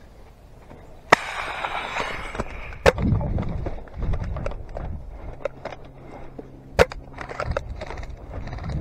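Footsteps on sand and leafy brush rustling close by as a player moves through scrub, with three sharp cracks: about a second in, near three seconds and near seven seconds. The first crack is followed by about two seconds of rustling.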